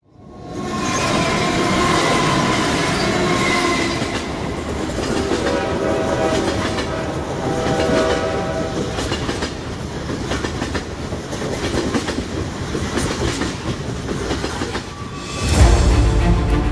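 Railroad train running with its horn sounding at intervals over the clickety-clack of wheels on rail joints; the horn's chord sits lower from about five seconds in. Music comes in about a second before the end.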